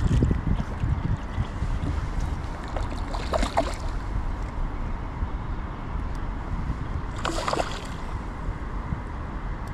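Steady rush of river water with wind buffeting the microphone, broken by two brief sharper noises about three and seven seconds in.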